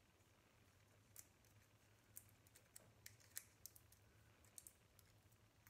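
Faint, irregular clicks and small scrapes of a scissor tip picking at the sealed cork of a small glass jar of bath salts.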